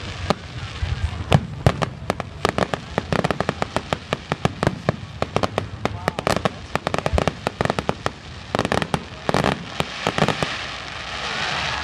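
Aerial fireworks bursting in a rapid, dense string of sharp bangs and crackles, several a second. Near the end a swelling hiss builds.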